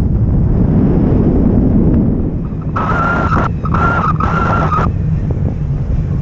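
Airflow buffeting the microphone of a pole-mounted camera in tandem paraglider flight. About three seconds in come three short beeps at one steady high pitch.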